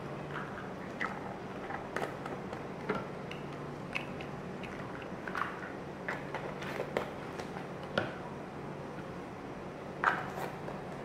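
Scattered light clicks and taps of small bottles and kitchen items being handled, a few louder knocks among them, over a faint steady low hum.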